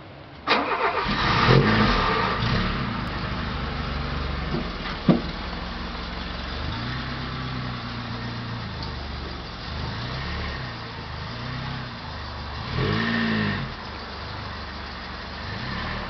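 A Volkswagen Golf Mk1's 1.1-litre four-cylinder petrol engine starts about half a second in, revs briefly, then settles to idle. A sharp click comes about five seconds in, and there is a short rev near thirteen seconds.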